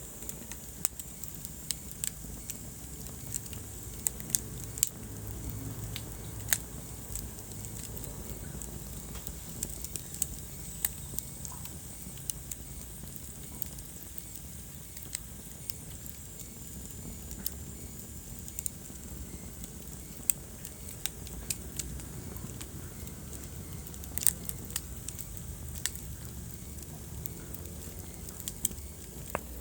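Wood fire crackling in a fireplace: irregular sharp pops and snaps over a low steady rumble of the burning logs.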